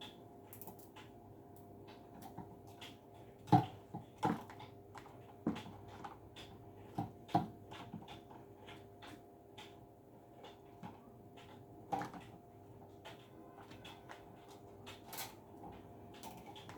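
Scattered clicks and knocks of plastic desk-fan parts and zip ties being handled while a zip tie is fitted, with the louder knocks a few seconds apart, over a faint steady hum.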